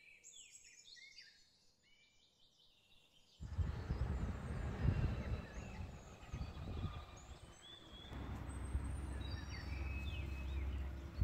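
Small birds chirping. About three seconds in, a loud low rumble starts abruptly and carries on under the birdsong, settling into a steadier low hum later on.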